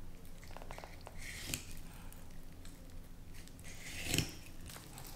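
Quiet, intermittent scraping and small ticks of a knife drawn along a halibut's backbone while filleting it, with a louder rasp about four seconds in.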